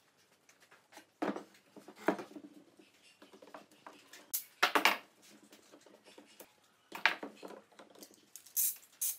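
Quick-release bar clamps and wooden stool-frame parts being handled on a workbench: a series of irregular clatters and knocks of metal clamp bars and wood.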